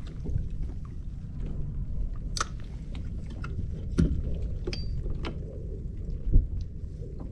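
Low, steady rumble of wind and water on the microphone of a fishing kayak, with scattered clicks and knocks of rods and gear being handled on the hull; the loudest thuds come about four seconds in and about six seconds in.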